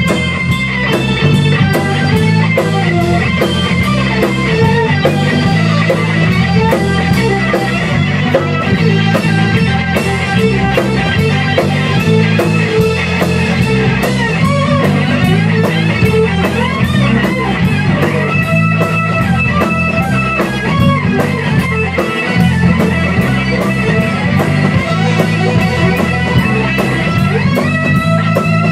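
Rock band playing: electric guitar, electric bass and a Tama drum kit, with a steady beat, in a small rehearsal room.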